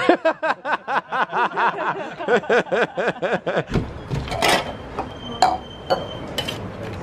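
A person laughing in a quick run of about five short bursts a second for about three and a half seconds, then a few sharp clinks of a stainless cocktail shaker tin and a glass on a tiled bar counter, one ringing briefly.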